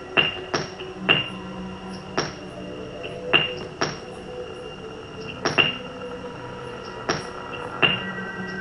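Sharp percussive strikes at irregular intervals, about a dozen, each ringing briefly, over several steady held tones: experimental performance music built from knocks and drones.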